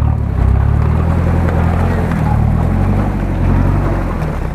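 Toyota 4Runner's engine running steadily, low-pitched.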